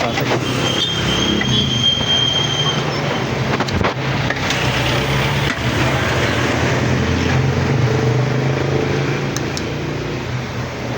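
Microwave oven running on test: a steady mains hum from the transformer along with the fan, plus a high whine for about two seconds near the start and a few clicks. The oven is being tested for a fault where it runs but won't heat, and it still isn't heating.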